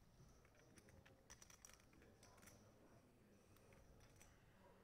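Near silence: quiet room tone with faint, scattered clicks of poker chips being handled at the table.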